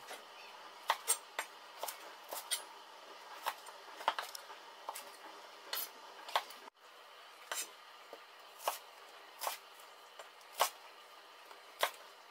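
Santoku knife chopping carrots and then a red onion on a wooden cutting board: a sharp tap as the blade hits the board with each cut, at an irregular pace of about one or two a second.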